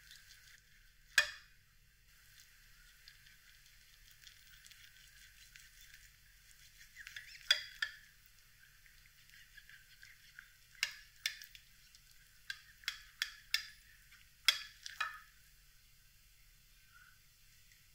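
Knife and fork carving roast goose in a glass baking dish: a soft crackle of the blade cutting through the crisp skin and meat, broken by about a dozen sharp clicks and taps of the metal cutlery, most of them bunched in the second half.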